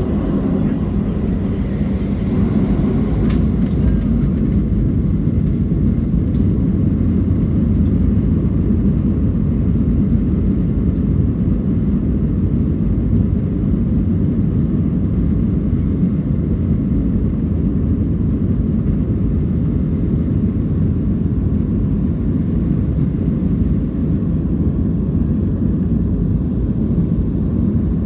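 Boeing 737 cabin noise heard from a window seat: a steady low rumble of the jet engines and the airliner rolling along the ground.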